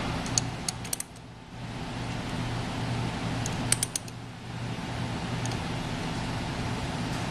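Small metallic clicks of a wrench on the pump's adjusting bolts, in two short clusters, one starting just after the start and another about three and a half seconds in, over a steady low hum.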